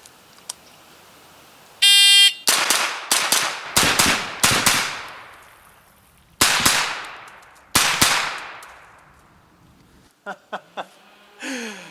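A shot timer's start beep about two seconds in, then a Colt AR-15 9mm carbine with a muzzle compensator fires quick pairs of shots for about six seconds. A few small mechanical clicks follow near the end.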